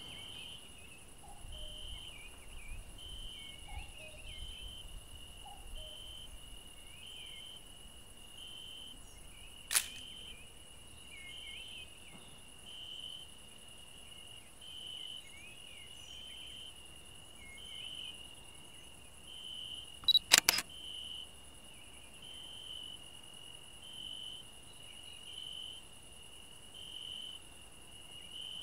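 Crickets chirping steadily, a high pulse about once a second over a thin insect hiss. A DSLR camera shutter clicks once about ten seconds in, then three times in quick succession around twenty seconds in.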